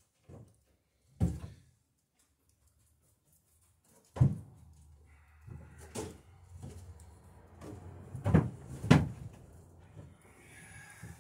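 Scattered sharp knocks and clunks of work on a wooden dory's rails: about half a dozen hits at uneven gaps, the two loudest about half a second apart near the end.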